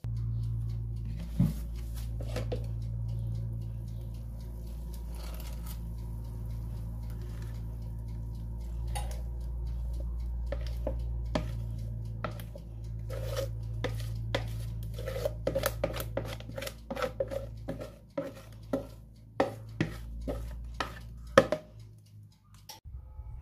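A spatula stirring and scraping cake batter in a plastic mixing bowl, then knocking and scraping against the bowl as the batter is scraped out into a baking tin, with a quick run of clicks and taps in the second half and the loudest tap near the end. A steady low hum runs underneath and stops near the end.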